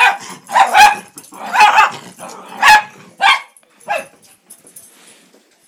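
Dog barking during rough play: about six short, loud barks in the first four seconds, then it falls quiet.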